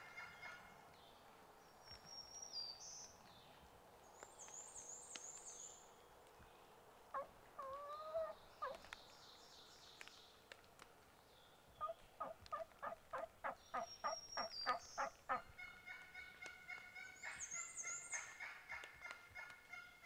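Wild turkey calling: a short call about eight seconds in, then a loud run of about a dozen rapid notes, about three a second, from about twelve seconds in. Songbirds chirp high-pitched throughout.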